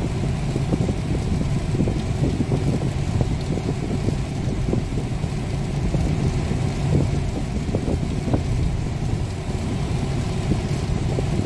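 Car driving on a wet road, heard from inside the cabin: a steady low rumble of engine and tyre noise with a few light knocks.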